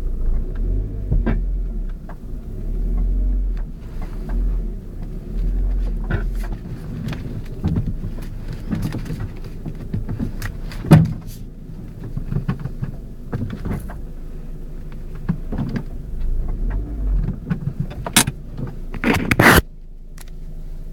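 Ford Focus clunking: repeated short knocks over a low rumble, the sharpest about eleven seconds in, then a louder harsh patch near the end that cuts off suddenly. It is the clunk the owner is trying to trace, with the strut, spring or top-mount bearing plate under suspicion.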